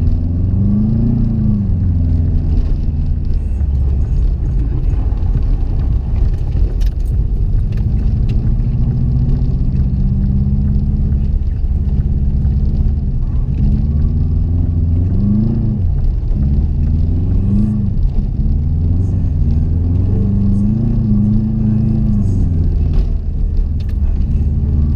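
Subaru WRX's flat-four engine running while driving, over a steady low rumble. Its pitch rises and falls again and again as it is revved and eased off.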